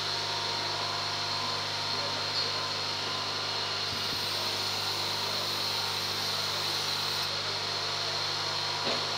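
Jig boring machine's electric motor running with a steady hum while the piston is set up under a dial indicator, with a faint tick about four seconds in.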